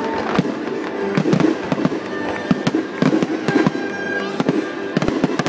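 Aerial fireworks bursting overhead in many sharp, irregular pops and crackles, with music playing underneath.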